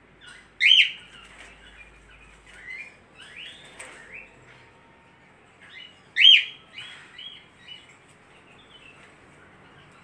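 Pet parakeet chirping: two loud, sharp chirps, one a little under a second in and one about six seconds in, with softer chirps and twitters between them.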